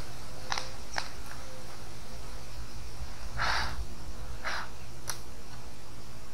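Small wood fire being tended by hand: a few sharp snaps and ticks, and two short rustling scrapes as the embers and sticks are stirred, over a steady low background rumble.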